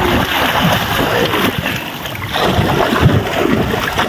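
Seawater splashing and churning around the bow of a wooden outrigger boat as swimmers move in the water, over a steady rush of wind and waves.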